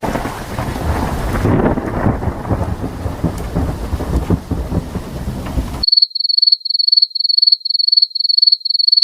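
Thunderstorm sound effect: rumbling thunder over rain, cutting off abruptly about six seconds in. Then a cricket chirps in a high, even pulse about three times a second, the familiar 'crickets' awkward-silence effect.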